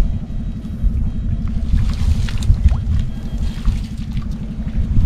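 Faint splashes and trickles of water from wading in a flooded rice field, over a steady low rumble.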